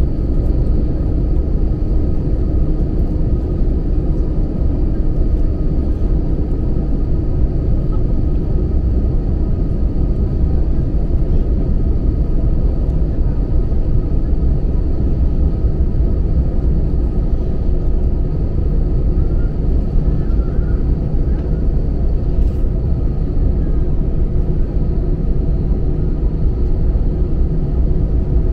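Steady low rumble inside the cabin of an Airbus A321 as it taxis, its jet engines running at low taxi power, with faint steady tones over the roar.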